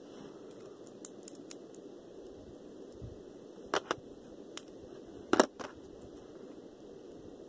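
Scattered light clicks and taps of something being handled, over a steady hiss. There is a quick pair just before four seconds in and a louder double knock at about five and a half seconds.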